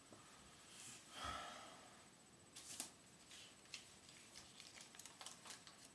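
Very quiet room with a short breathy sound about a second in, then faint crinkling and clicking as a paper banknote is handled and unfolded.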